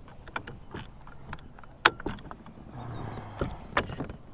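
Clicks and clacks of a pedal kayak's pedal drive being adjusted by hand: plastic and metal parts knocking and rattling, with a sharp clack about halfway through and another near the end.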